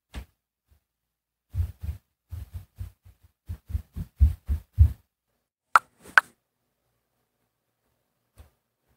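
Muffled thumps from a neighbouring apartment: about a dozen dull, low thuds, irregularly spaced, over roughly three seconds, followed about a second later by two sharper knocks.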